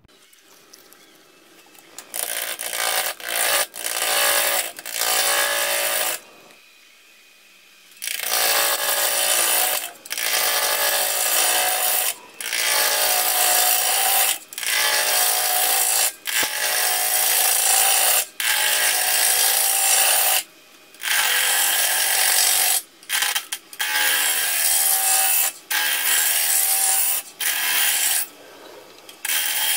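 Wood lathe spinning a spalted beech blank while a gouge cuts it, a loud scraping cut in passes of one to two seconds with short pauses between them. The cutting starts about two seconds in and has a longer pause about six seconds in.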